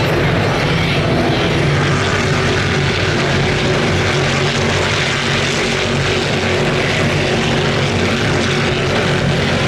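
Stock Car Brasil race cars' V8 engines running on the circuit, a steady loud engine drone heard from the grandstands.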